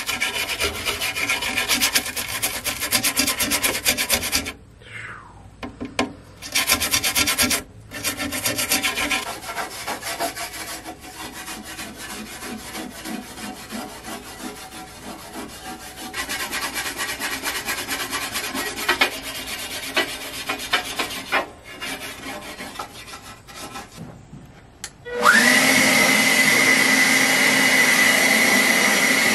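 Handheld wire brush scrubbing rust and peeling paint off a leak-damaged steel tractor battery tray in rapid rasping strokes, stopping and starting several times. Near the end a cordless leaf blower spins up with a rising whine and runs steadily.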